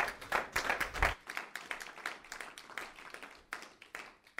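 A congregation applauding. The clapping is dense for the first second, then thins out and dies away near the end.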